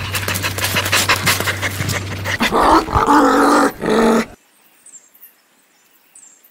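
A dog panting quickly, then a few loud, pitched barks that cut off abruptly about four seconds in.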